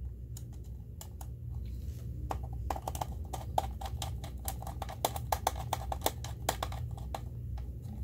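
Many small, quick clicks and taps as a wire is fitted and fastened into the A1 screw terminal of a relay socket. The clicks are scattered at first and come thick and fast from about a third of the way in until near the end, over a steady low hum.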